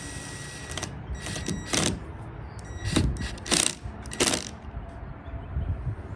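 Power drill driving screws into wood, running in short bursts with a motor whine.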